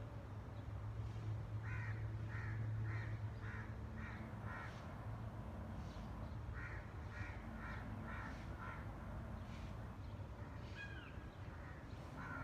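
A crow cawing in two runs of repeated calls, about two a second, with a brief pause between them, over a low steady hum. A short gliding call from another bird comes near the end.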